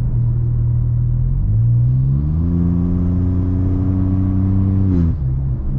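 Volkswagen T-Cross's 1.0 turbo three-cylinder, Stage 1 remapped, running through a straight pipe with the exhaust disconnected after the catalytic converter, so no muffler. The revs rise in two steps, hold, then drop back about five seconds in. The sound is loud and resonant.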